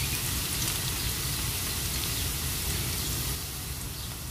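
Ginger frying in hot cooking oil in a pan, a steady sizzle that eases slightly near the end.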